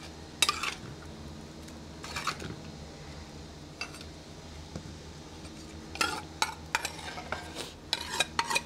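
Spoon scraping and clinking against a clay bowl as beans are scooped into a blender jar: a few separate scrapes, then a quick run of scrapes and knocks over the last few seconds.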